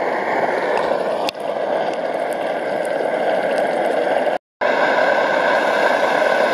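MSR XGK multi-fuel stove burner running flat out on diesel fuel, a loud steady rushing roar of pressurised flame. The sound cuts out for a moment about four and a half seconds in.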